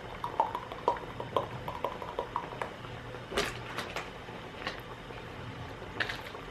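A quick run of light clinks, like tableware being handled, then crackling of a plastic water bottle, opened and then squeezed as it is drunk from near the end.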